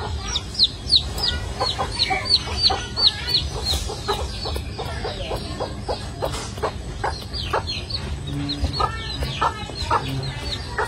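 Birds peeping: runs of short, high chirps that fall in pitch, about three a second, with a pause of a few seconds between runs.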